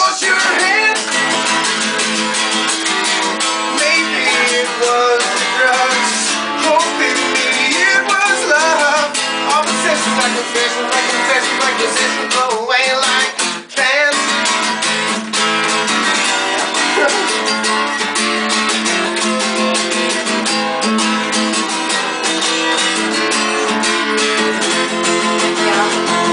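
Acoustic guitar strummed steadily, with a young man singing along. There is a brief break in the playing about halfway through.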